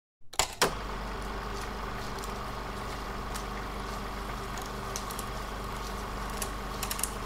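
Stylus set down on a vinyl record: two sharp clicks, then a steady low hum and hiss of surface noise with scattered faint crackles.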